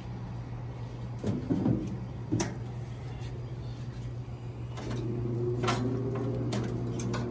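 Stainless steel pellet grill lid being opened: a few knocks and clicks about one to two seconds in, over a steady low hum. A second, higher hum joins about five seconds in.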